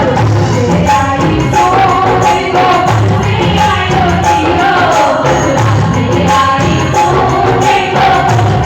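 Woman singing a Rajasthani devotional song, her melody line wavering over a dense instrumental accompaniment with a pulsing low beat.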